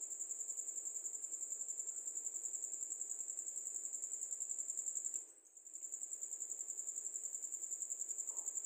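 Crickets chirping outdoors in a steady, high, rapidly pulsing trill, which drops out briefly a little past halfway.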